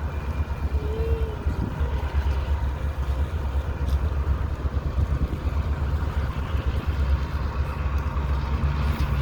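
Steady low rumble with an even hiss over it, with a faint short tonal call about a second in.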